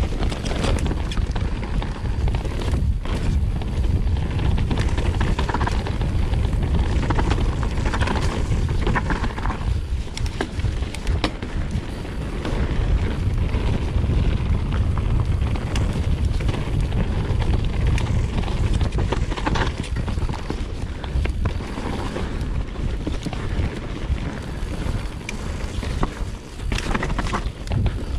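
Wind buffeting the camera microphone as a Vitus Sommet 29 mountain bike is ridden fast down a loamy, rooty dirt trail, with frequent knocks and rattles from the bike over roots and bumps.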